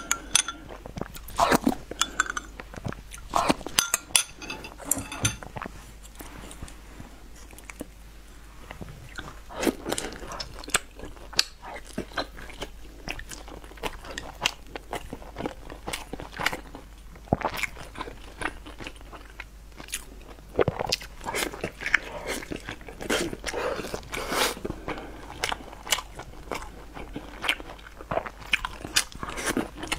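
Close-miked eating of sticky rice dumplings (zongzi): steady chewing and crunching, with many short wet mouth clicks and smacks.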